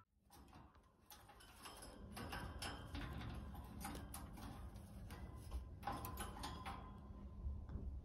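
Faint, irregular light clicks and taps from a budgerigar moving on the wire cage bars at its plastic water dispenser, over a low room hum.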